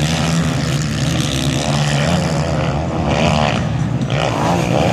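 Motocross bike engines running hard on the track, with the pitch wavering up and down in the second half as the throttle changes.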